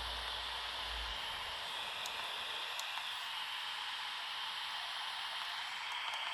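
HamGeek ATS200 radio receiver's speaker giving out a steady static hiss. A low hum underneath stops about a second in.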